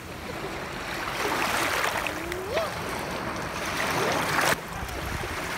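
Small waves washing over a pebbly shore, a steady wash of water. There is a short rising voice sound about two and a half seconds in, and the sound changes abruptly near the end.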